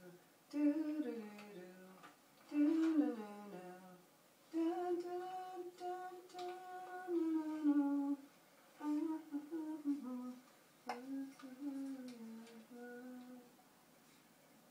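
A woman humming a slow tune in long held notes that slide from pitch to pitch, in short phrases, stopping shortly before the end. It plays through a TV's speaker into a small room.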